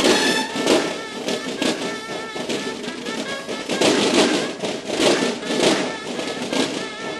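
Drum section of a Mexican banda de guerra playing a rapid, rhythmic drum passage, dense sharp strokes with louder accents; the bugles fall silent right at the start.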